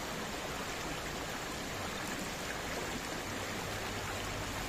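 Shallow river flowing over rocks: a steady, even rush of water.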